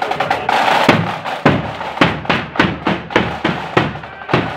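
Marching flute band: flutes and drums play together for about the first second, then the drums carry on alone with a steady march beat of about three strikes a second.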